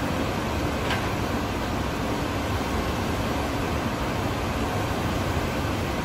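Steady noise of machinery in a large steel fabrication workshop, even and unbroken, with a brief high squeak about a second in.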